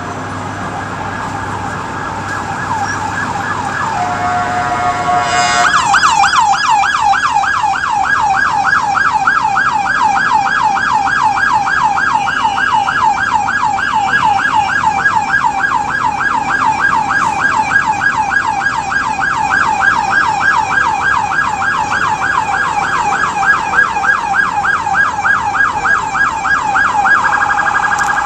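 Police car electronic siren sounding in stalled traffic. It starts as a slow wail and holds a steady tone for about a second and a half. It then switches to a fast yelp, rising and falling about three times a second, and changes to a faster warble near the end.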